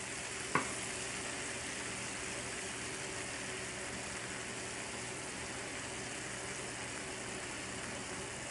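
Shrimp and chopped garlic sizzling and simmering in oil and marinade in a frying pan, a steady hiss. A short tap about half a second in.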